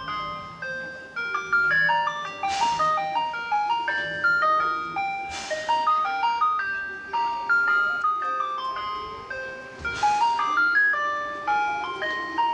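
A simple chime-like melody of clear single notes, with a short cymbal-like swish every few seconds.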